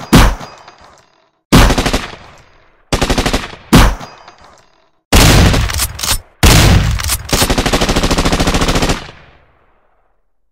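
Gunfire sound effects: single shots and short bursts of automatic fire, then a long rapid burst of about two and a half seconds near the end.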